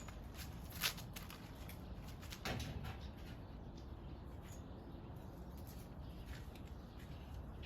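Faint scratching and rustling of cats climbing about in a grapevine, with a sharp click about a second in and a louder scrape about two and a half seconds in.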